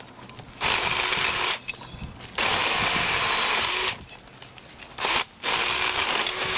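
Black & Decker Alligator battery lopper chainsaw running in four short bursts as its chain cuts through branches. Each burst starts and stops abruptly, and the longest lasts about a second and a half.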